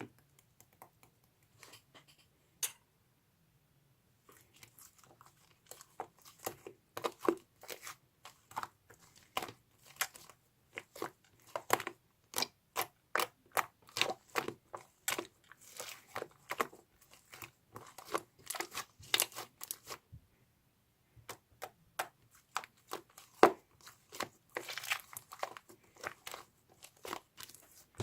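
Irregular crunching and crackling close to the microphone: many short clicks and crinkles in quick succession. They are sparse for the first few seconds, then come thickly, with a short pause about two-thirds of the way through.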